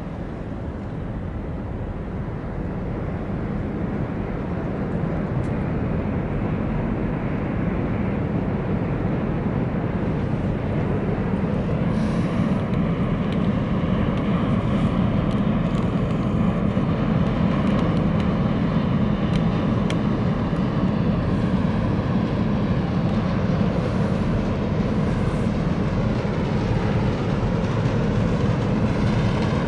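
Steady low rumble of a large container ship under way close by. It grows louder through the first half and then holds, with faint steady whining tones joining about halfway.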